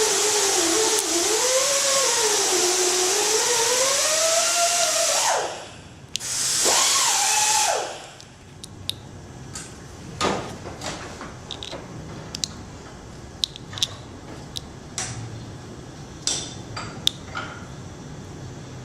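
A loud hiss carrying a whine that wavers up and down in pitch, which cuts out about five seconds in and comes back briefly for about two seconds. After that come scattered light clicks and taps.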